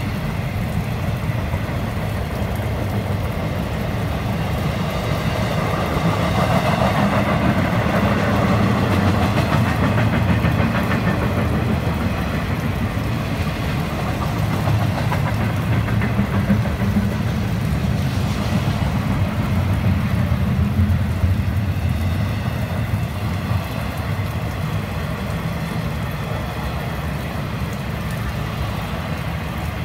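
Intermodal freight train's container and trailer cars rolling past: a steady rumble of steel wheels on the rails, swelling a little a few seconds in and again about twenty seconds in.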